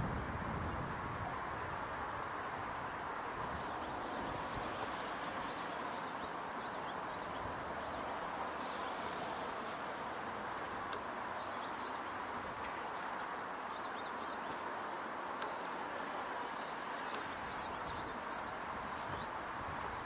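Small birds giving short, high chirps, scattered irregularly throughout, over a steady rushing background noise.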